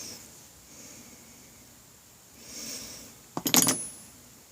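A quick cluster of sharp metallic clinks about three seconds in, with a brief high ringing after: steel engine parts, a gear and washers from a Honda Rebel 250's clutch side, knocking together as they are handled and fitted.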